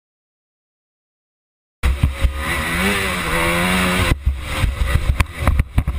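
Silence for nearly two seconds, then a motocross dirt bike's engine held at high revs with heavy wind noise on the helmet camera, its pitch rising slightly and then steady. A little past four seconds the engine note gives way to a rapid, irregular run of knocks and buffets.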